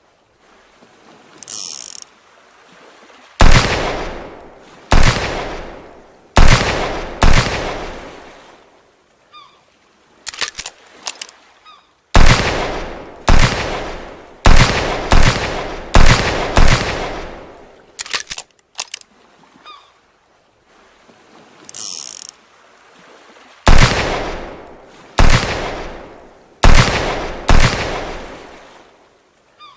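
Revolver gunshot sound effect: sharp shots, each with a long echoing tail, fired in three volleys of four to eight shots. Small metallic clicks come between volleys, like the hammer or cylinder being worked.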